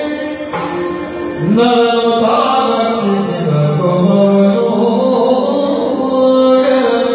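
Male Yakshagana bhagavata singing in long, gliding phrases over a steady shruti drone, accompanied by maddale drum strokes.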